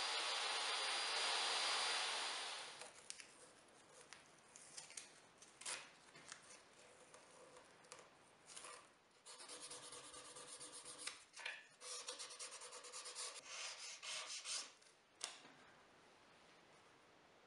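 A steady machine noise cuts off about two and a half seconds in. After it come soft rubbing and scraping from hand work on plywood pieces: a small plastic spatula spreading wood glue, with a few sharp clicks as spring clamps are handled.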